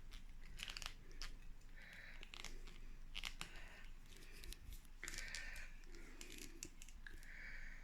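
Dry scratching and rustling with scattered small clicks: dill seeds being sown by hand into furrows in potting soil, fingers working the soil and seed packet.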